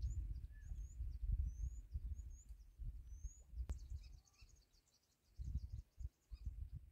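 Gusty wind buffeting the microphone as an uneven low rumble that drops away for about a second past the middle. Over it a small bird gives short, high, rising chirps over and over through the first half, then a quicker high twittering follows.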